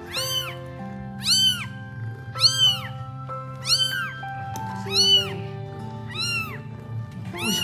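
Newborn kitten mewing: a high, thin cry that rises and falls, repeated about once a second, seven times in all. Background music with steady held notes plays underneath.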